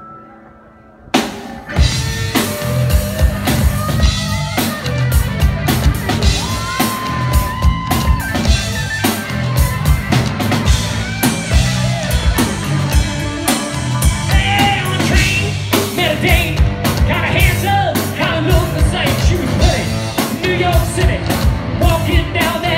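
Live rock band kicking in about a second in: electric guitar, bass and drum kit playing a fast, driving rock and roll beat. A male lead vocal comes in about halfway through.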